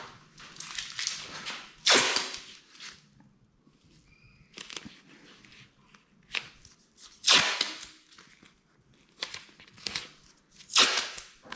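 Masking tape being pulled off the roll and torn in short, sharp rips: three loud ones spread through, with softer rips and rustles of masking paper being pressed down between them.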